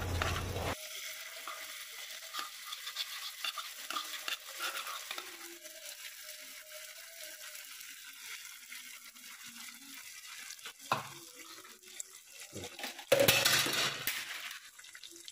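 Chili sambal frying in oil in a non-stick frying pan: a soft, steady sizzle with a spatula stirring and scraping. A louder burst of sizzle and stirring comes about thirteen seconds in.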